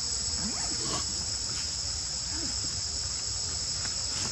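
Steady high-pitched buzz of an insect chorus in the forest, unbroken throughout.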